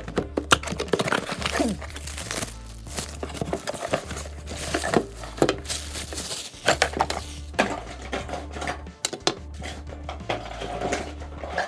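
Packaging of a new hammer drill being opened and handled: crinkling and rustling of packing with irregular clinks and knocks of the drill and its metal and plastic parts. A steady bass pattern of background music runs underneath.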